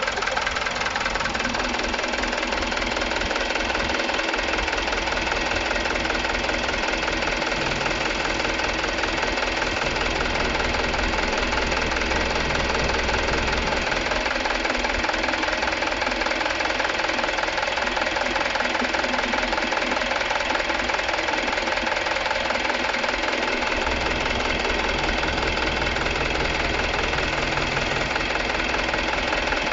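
Mitsubishi Canter HD 125 PS truck's four-cylinder diesel engine idling steadily, run for an engine check.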